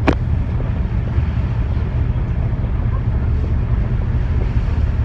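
Steady low rumble of a boat's engine heard aboard, with one sharp click just after the start.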